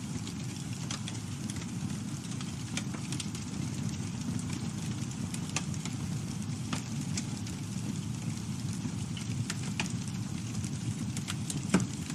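Campfire burning: a steady low rush of flames with scattered crackles and pops, and one sharper pop near the end.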